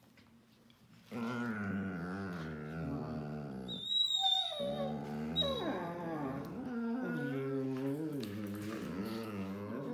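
Czechoslovakian Wolfdogs, an adult and a puppy, vocalizing while they play-wrestle and mouth each other: a continuous wavering, howling growl starts about a second in and keeps going, with a brief high-pitched squeal around four seconds in. The growling is playful, not aggressive.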